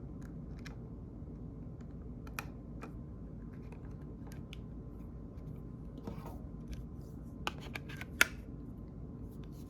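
Scattered light clicks and taps from handling small phone parts as a Samsung phone's original screen is refitted, with a few quick clicks close together about three-quarters of the way through, the sharpest near the end.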